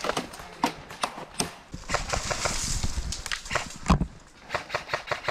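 Irregular footsteps and knocks of someone moving over the woodland floor, with a rushing hiss about two seconds in and a heavy thump about four seconds in.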